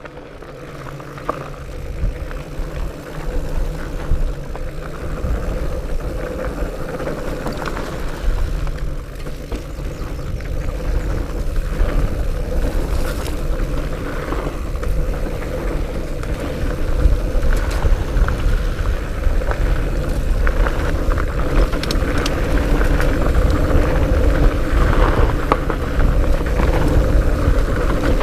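Diamondback El Oso Tres fat bike rolling fast over a dirt singletrack trail: a low rumble from the fat tyres with a steady hum, and scattered knocks and rattles. It grows louder as the ride picks up speed.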